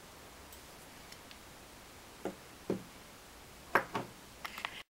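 A few light clicks and taps from needle-nose pliers and the small parts of an opened digital tyre tread depth gauge being handled. After quiet room tone they come about two seconds in, again a little later, and in a short cluster near the end.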